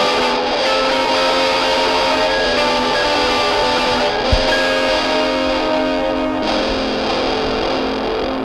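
Instrumental passage of a rock song, with electric guitars holding ringing chords and no vocals. There is one low thump about four seconds in, and the chord changes a couple of seconds later.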